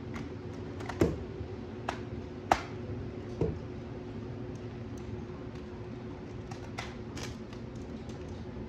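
Hard plastic clicks and knocks from a toy gel blaster's drum magazine being fitted to and handled on the gun, a few sharp clicks, the loudest about one and two and a half seconds in, over a steady low hum.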